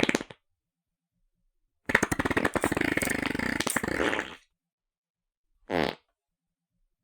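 Three fart sounds: a short one at the start, a long sputtering one of about two and a half seconds with a rapid flutter, and a short one near the end.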